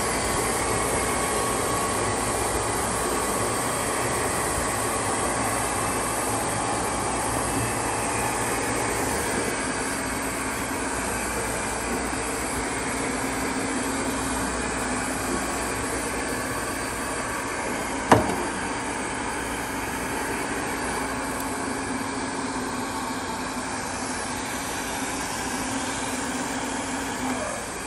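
Amada punch and die tool grinder's 1 hp three-phase electric motor running steadily, with one sharp knock about 18 seconds in. The sound drops away near the end.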